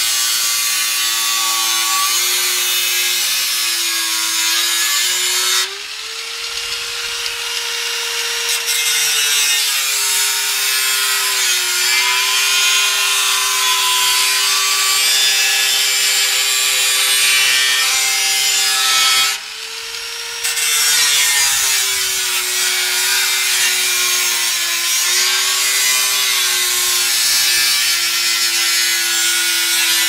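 Angle grinder with a cut-off disc cutting around the rim of a stainless-steel washing-machine drum: a steady motor whine under a harsh grinding hiss. Twice, about six and nineteen seconds in, the disc comes out of the cut, the hiss drops and the motor's pitch rises, then the pitch sinks again as the disc bites back into the metal.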